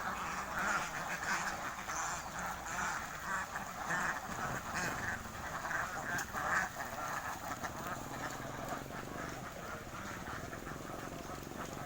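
A large flock of ducks quacking, many calls overlapping; the chorus thins and quietens after about seven seconds.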